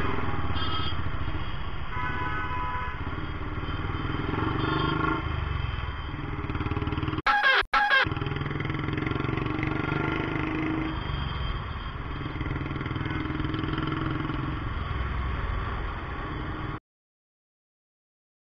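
Royal Enfield Classic 350's single-cylinder engine running steadily in city traffic, with road and wind noise and other vehicles' horns honking now and then. About seven seconds in come two short, very loud bursts. The sound cuts off suddenly near the end.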